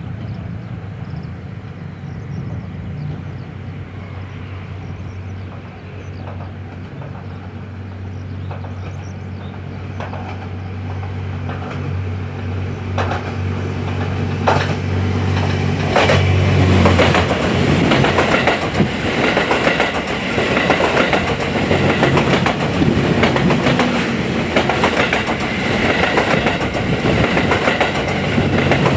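Diesel train approaching with its engine humming, then passing close by. Sharp clicks from the wheels crossing rail joints begin about a third of the way in and build into a loud, continuous clatter from just past halfway to the end.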